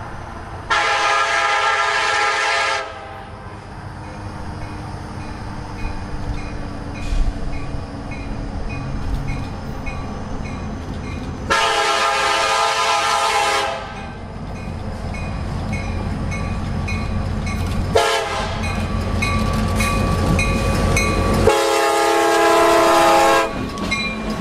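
Nathan K5LA five-chime air horn on a CSX EMD SD70MAC blowing the grade-crossing signal, long, long, short, long, as the train approaches. The rumble of the locomotives' diesel engines and wheels on the rail grows louder, and the lead units pass close near the end.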